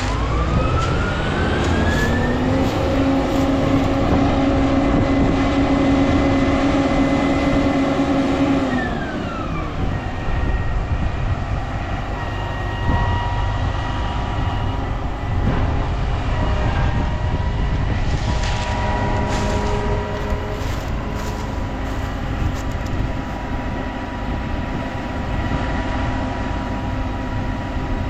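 Combine harvester running. A machine whine climbs in pitch over the first couple of seconds, holds steady, then drops away about nine seconds in. After that the machine runs on with a steady, thinner whine over a constant rumble.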